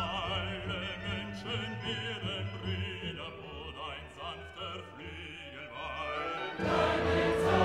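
Background music: operatic singing with vibrato over classical accompaniment, becoming louder and fuller near the end.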